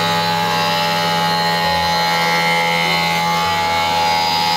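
Optical lens edger grinding a spectacle lens under a water spray: a loud, steady whine of several held tones from the spinning grinding wheel and its motor, over a low hum.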